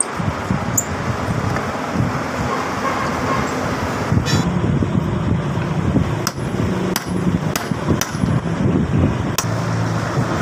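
A screwdriver prying and knocking at a ceiling fan motor's metal cover: a run of sharp clicks and knocks, most of them in the second half, over a steady low background noise.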